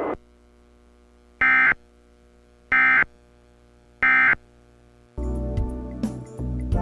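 Emergency Alert System end-of-message tones: three short, identical bursts of warbling digital data tones, about a second and a half apart, closing the alert. Music starts about five seconds in.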